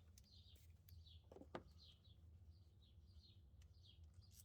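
Near silence, with faint birds chirping in the background in short falling chirps repeated every fraction of a second, and one faint click about a second and a half in.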